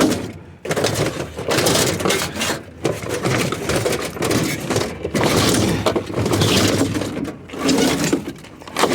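Scrap metal from discarded appliances clattering, scraping and banging as it is handled and pulled apart, a near-continuous run of rattles and knocks.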